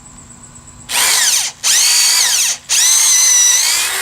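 Power drill boring a pilot hole in a wooden board, run in three pulls of the trigger with two short pauses, its motor whine rising and falling with speed.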